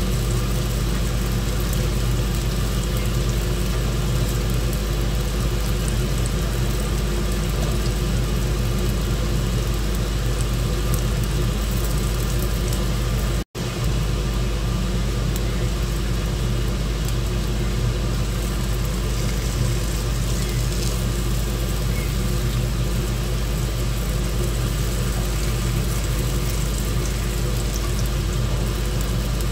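Steady low rumble of a running vehicle, cutting out for an instant about halfway through.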